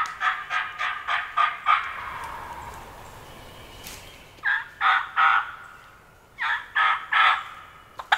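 Wild turkey calling: a run of about seven loud, rapid notes at the start, fading out by about two seconds in. Two shorter runs of three or four notes follow, one about halfway through and one near the end.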